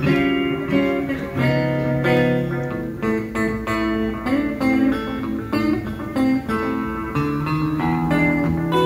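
Electric guitar played live through an amplifier: picked notes and chords changing every half second or so, in a slow, steady line.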